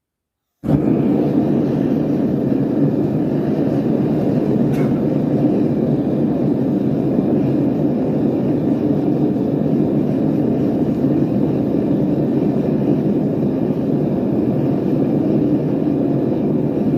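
A homemade gas forge's venturi burners light suddenly just under a second in, then burn with a loud, steady rushing noise.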